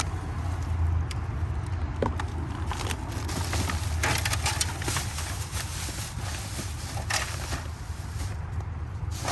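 Rummaging through dumped-out trash: plastic bags and packaging rustling and crinkling, with scattered knocks and clatters, thickest in the middle, over a steady low hum.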